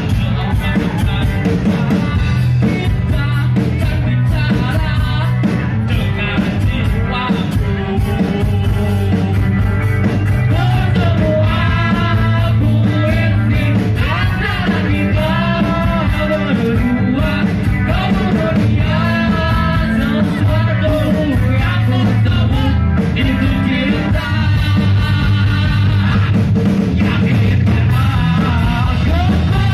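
A live rock band playing, with electric guitars and a drum kit, and a male singer singing over them, amplified through stage speakers.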